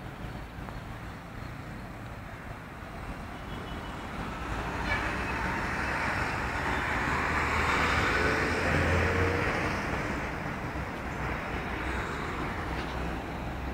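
Road traffic noise, a steady rush with one vehicle passing, swelling to its loudest about halfway through and then fading.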